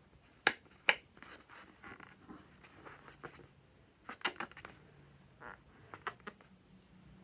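Hands with long fingernails handling and squeezing a filled latex balloon: light rubbing of the rubber with a few sharp clicks, two in the first second and a cluster about four seconds in.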